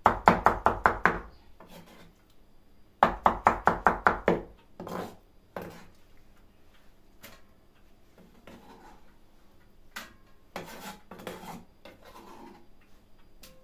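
Knife chopping tomatoes finely on a wooden cutting board, in two quick runs of about five strokes a second, the first at the start and the second about three seconds in. After them come softer scattered knocks and scraping.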